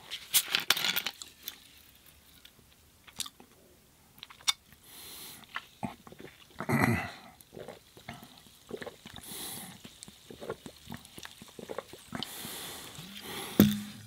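A Perrier sparkling water bottle has its cap twisted off with a short fizzy hiss, then a person drinks from it: gulps and swallows with soft mouth clicks, and breathy exhales between sips, the loudest about halfway through.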